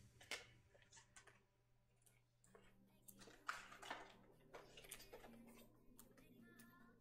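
Faint, irregular clicks and light scrapes of hard plastic card holders and sleeves being handled and set down on a table.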